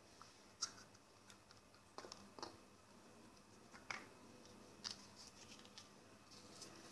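Light clicks and taps of small objects being handled and set down on a hard table: a cut-off plastic bottle neck with its cap, a disposable lighter and matches. About six sharp taps come at uneven intervals over a faint steady background.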